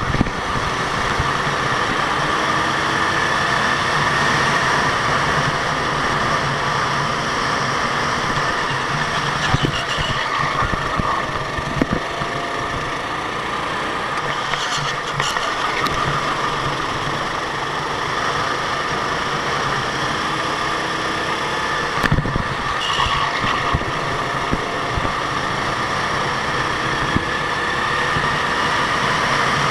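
Go-kart engine running continuously, with a few short shifts in pitch and a couple of brief knocks.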